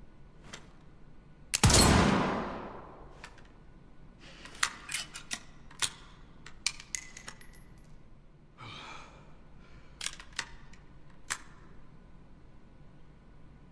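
A single shot from a Thompson Center Encore single-shot pistol: one loud bang with a decaying echo, followed by a series of metallic clicks, one ringing briefly, a short rustle, and a few more clicks, typical of the break-action being opened, the spent case taken out and the action closed again.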